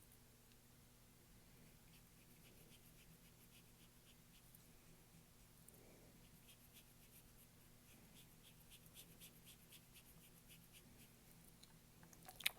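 Faint scratchy strokes of a paintbrush working acrylic paint onto canvas, coming at about three a second in the second half. A sharp click right at the end.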